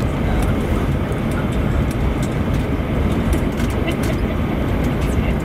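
Cabin noise aboard an Airbus A321 taxiing with its CFM56-5B engines at idle: a steady low rumble with scattered light clicks.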